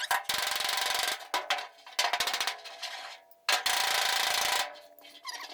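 Handheld grinder grinding down tack welds on sheet-metal body panel, running in short bursts that start and stop several times.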